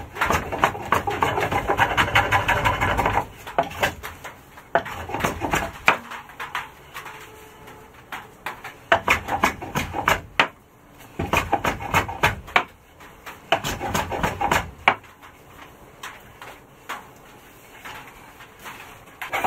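Small hand tool working the end of a rough wooden beam: about three seconds of continuous scraping, then scattered knocks and clicks with a few shorter scraping stretches.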